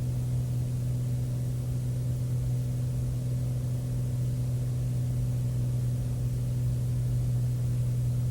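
Cessna 210 Centurion's piston engine and propeller droning steadily in flight, heard from the cockpit as a low, even hum with no change in pitch.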